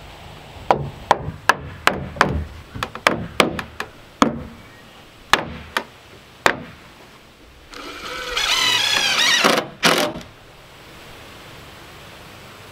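About a dozen sharp knocks on wood at an uneven pace during the first six seconds or so as slab-wood door trim is fitted. Then a cordless drill runs for about two seconds with a wavering whir, driving a screw into the trim, followed by one more short burst.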